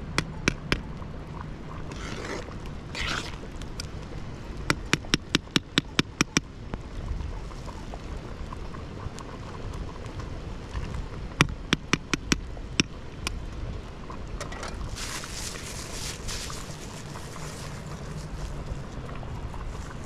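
A ladle clinking against the rim and sides of a large metal soup pot as the soup is stirred, in quick runs of sharp clinks, about five a second. Two short bursts of hiss come and go, over a steady low rumble.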